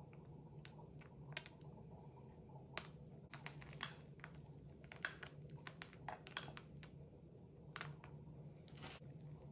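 Faint, irregular light clicks and rattles of crushed Cadbury Mini Eggs, candy-shelled chocolate pieces, being sprinkled by hand and tapping against one another, with a few sharper clicks now and then.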